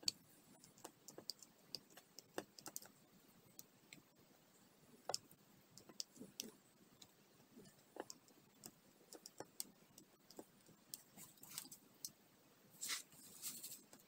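Faint, scattered small clicks and taps of resin diamond-painting drills and fingers on the canvas, irregular and a few a second at most, with a short rustle about 13 seconds in.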